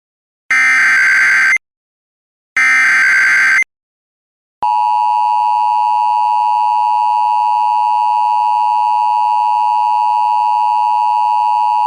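Emergency Alert System SAME header: two harsh digital data bursts of about a second each, a second apart. About four and a half seconds in, the steady, loud two-tone EAS attention signal starts and holds, the signal that comes just before an emergency alert message is spoken.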